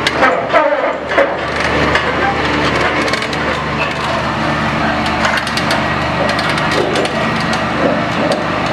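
Kleemann Mobirex EVO 110 tracked impact crusher crawling on its steel tracks: a dense, steady run of clicking, cracking and crunching from the track links and the ground under them, over the low steady hum of its engine.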